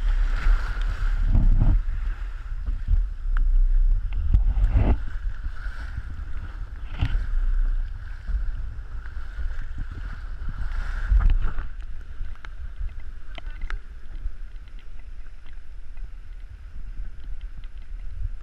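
Wind buffeting the microphone and water rushing and slapping along the hull of a small open sailing boat, a Drascombe Gig, under sail in choppy water, with scattered sharp splashes. The gusty rumble eases about two-thirds of the way through.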